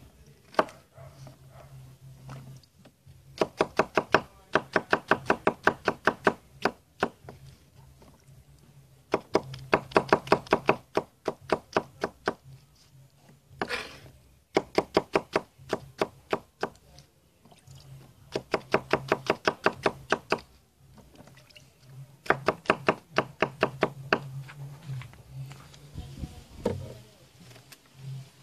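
Chef's knife chopping carrots and other vegetables on a wooden cutting board. The strokes come in quick, even runs of about five a second, each run lasting two to three seconds with short pauses between.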